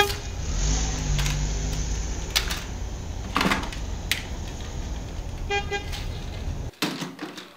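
Car sound effect: a steady low engine rumble with a short horn toot about five and a half seconds in, cutting off abruptly near the end. Light clicks of plastic toy cars being handled are heard over it.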